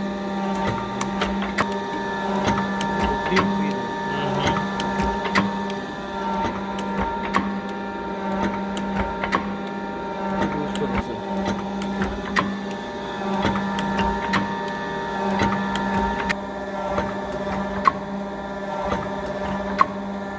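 Model 7403 slotting machine (vertical shaper) running: a steady motor hum with repeated clicks and knocks from the working mechanism.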